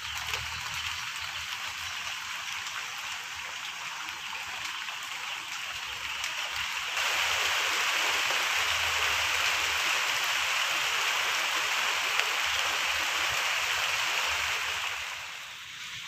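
Steady rain hissing onto the water of a flowing canal and the grass along its bank. The hiss grows louder about seven seconds in and eases off near the end.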